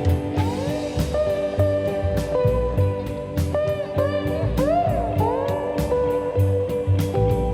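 Background music: guitar playing sliding, bending notes over a steady drum beat and bass.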